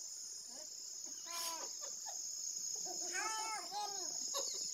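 Steady high-pitched chirring of night insects, typical of crickets, with people's voices calling out over it about a second in and again around three to four seconds in.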